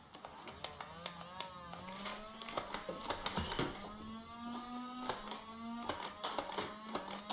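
Scattered sharp clicks and snaps of Nerf blasters firing and foam darts striking, irregular and several a second at times, over a faint steady background tone.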